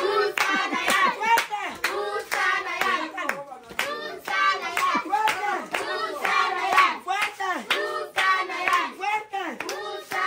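A group of children and women clapping their hands and singing and shouting excitedly, high children's voices over the claps.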